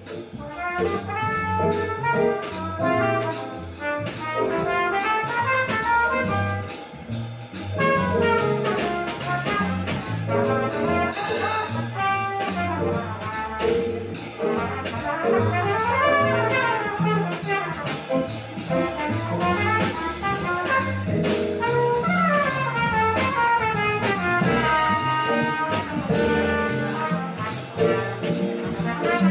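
Small jazz band playing live: a trumpet plays running melodic lines that climb and fall, over a Nord Electro keyboard, upright double bass and a drum kit with cymbals.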